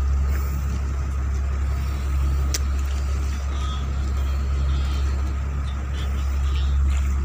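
Bangka outrigger boat's engine running steadily under way, a constant low drone with a hiss of wind and water over it.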